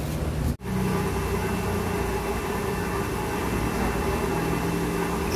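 A machine running steadily with a hum and a hiss; the sound drops out for an instant about half a second in.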